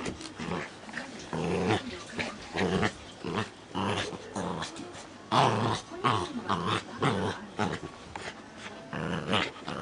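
Pembroke Welsh corgi puppy growling in play while biting a plush toy, in short irregular growls.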